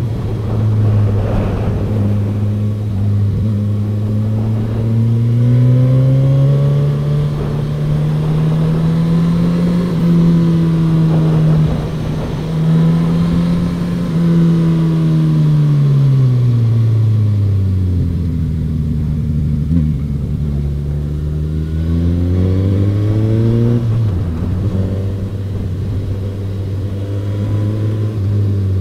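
Suzuki GSX-S1000F's inline-four engine heard from the saddle while riding. Its note climbs steadily under throttle for the first third, holds, then falls off sharply past the middle as the throttle closes, and climbs again a few seconds later before settling.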